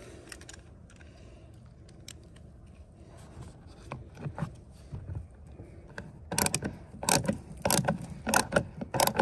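Hand screwdriver turning a screw into a truck's plastic door panel. A few quiet seconds of faint scraping and handling, then from about six seconds in a run of sharp, irregular clicks, two or three a second, as the screw is driven.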